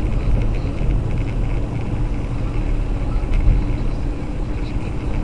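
Steady low rumble of a car driving, engine and tyres on a wet road, heard from inside the cabin.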